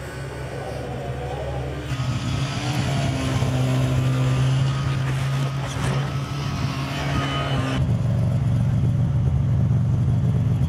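Snowmobile engines running, with a steady low engine note throughout. The sound changes abruptly twice, and it is loudest and closest in the last few seconds, as from a snowmobile running right beside the listener.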